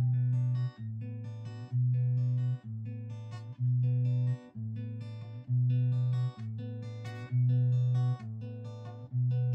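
Background music played on a fingerpicked acoustic guitar. A low bass note alternates between two pitches about once a second, with lighter plucked notes above it.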